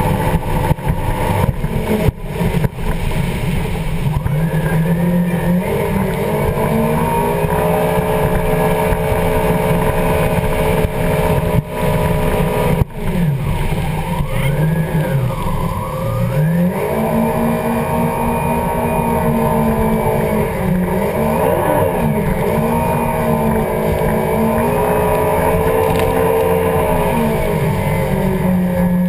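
Yamaha WaveRunner jet ski engine running at speed over the rush of water spray and wind. The engine pitch drops and climbs back about halfway through as the throttle is eased off and opened again, then wavers a little before settling.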